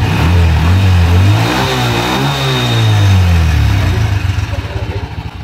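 SYM Bonus X motorcycle engine running with the throttle twisted by hand: the revs climb, peak about two seconds in, and fall back, settling toward idle near the end.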